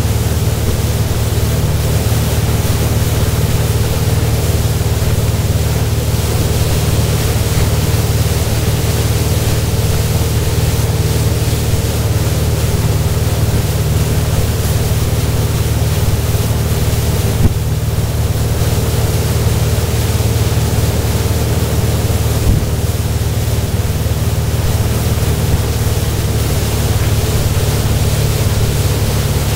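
Motorboat engine running at a steady towing speed, a constant low drone, under a rushing hiss of wind on the microphone and churning wake water.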